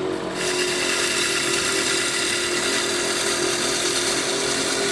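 Wood lathe running with a steady hum while a bowl gouge shear-cuts fine shavings from the spinning wooden stave drum shell, a steady hissing scrape of the cut coming in about half a second in.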